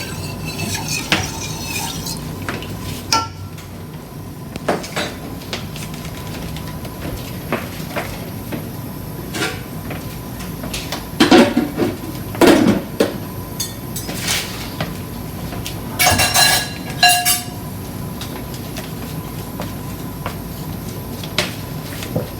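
Kitchen utensils and cookware clinking and knocking now and then, with a few louder clatters about halfway through and again a little later.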